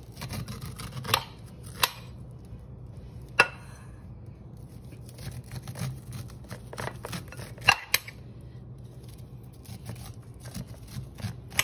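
Kitchen knife cutting kernels off an ear of fresh sweet corn in downward strokes: irregular crisp scraping cuts with a few sharp clicks.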